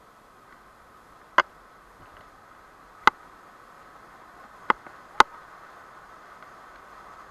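Steady rushing of a shallow rocky river's rapids, with four sharp clicks over it, the last two close together.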